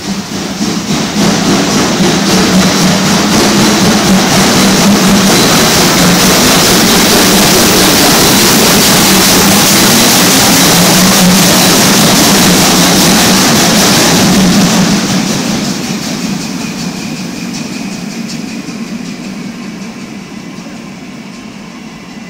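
Steam locomotive moving along the platform with steam venting in a loud, steady hiss over a low rumble. The sound fades gradually over the last third.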